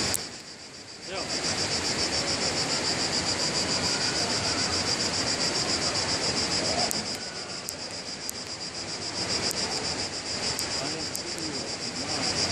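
Cicadas buzzing steadily, a shrill pulsing drone, over a steady rushing noise. It drops away for about a second at the start, then comes back.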